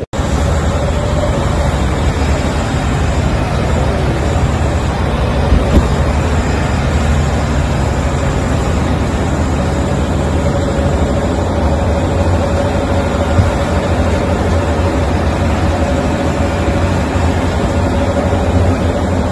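A steady low rumble with a constant hiss over it, from vehicle engines running close by.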